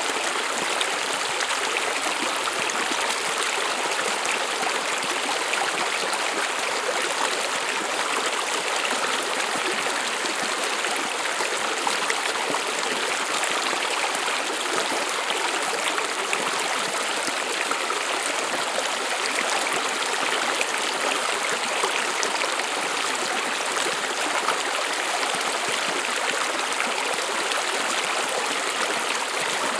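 A stream of water running and babbling steadily over rocks.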